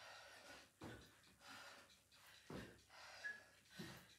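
Faint, soft thuds of trainers landing on a carpeted floor during jump lunges, a few of them spread through, with breathing between.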